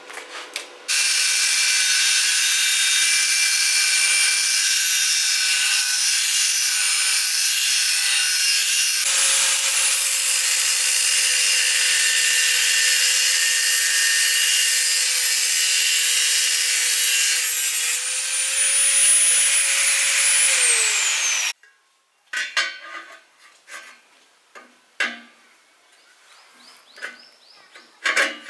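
Electric power tool working against a metal workpiece with a loud, hissing grind. About 18 s in its motor tone rises as the load comes off, then falls away as it shuts off and spins down. After that come several sharp clinks and knocks of metal parts being handled.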